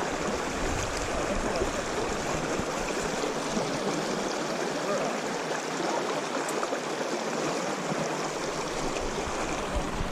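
River water running, a steady rushing hiss of a stream flowing.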